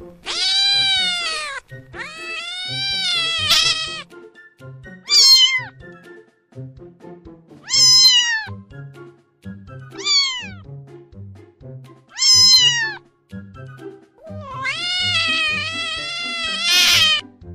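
A domestic cat meowing repeatedly, about seven meows, two of them long and drawn out, over soft background music.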